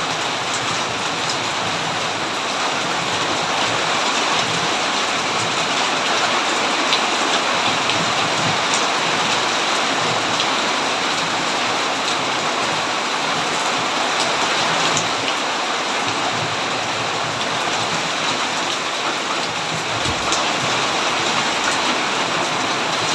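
Steady heavy rain falling and pattering on surfaces, a dense even hiss with many fine drop ticks.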